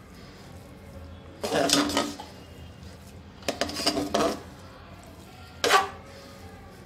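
Ladle scraping against the side and bottom of a pressure cooker while mixing cooked rice: three short bouts of scraping, about a second and a half in, around four seconds in, and a brief one near six seconds.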